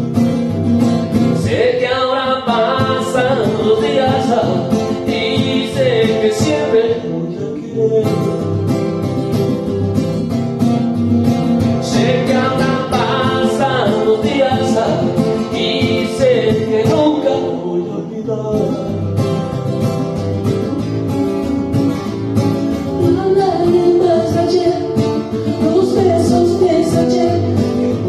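A country song played live on an acoustic-electric guitar: a steady strummed rhythm with melodic phrases rising over it in three stretches.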